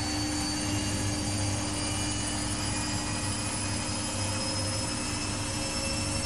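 Samsung WW80J5555FWEU washing machine running, with a steady low hum and a motor whine that slowly rises in pitch as the drum speeds up.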